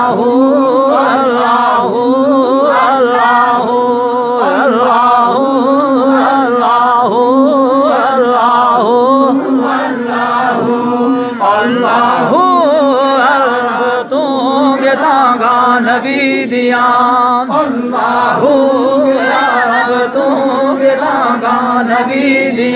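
Voices of men and boys chanting a devotional naat together: a wavering, ornamented melody sung over a steady low held note, without pause.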